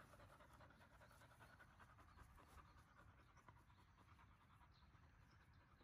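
Yellow Labrador retriever puppy panting, faint, quick and even, tired from retrieving in humid weather.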